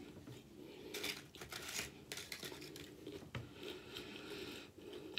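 Close-up chewing of spicy Doritos tortilla chips: a run of irregular crisp crunches with the mouth closed.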